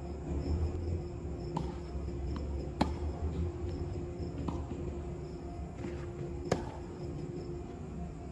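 Tennis rally: rackets striking the ball and the ball bouncing on the court, a series of sharp pops about a second or so apart, the loudest about three and six and a half seconds in. A steady low hum runs underneath.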